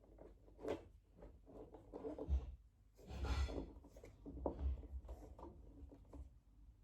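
Tripod parts being handled: scattered light knocks and clicks, with a louder scraping rustle about three seconds in.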